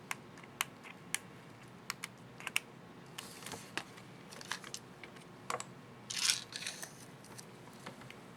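Sharp, separate plastic clicks and taps from an HP ProBook 4540s laptop keyboard's Enter keycap and its retainer clips being handled and fitted, with a short scratchy rustle a little past six seconds.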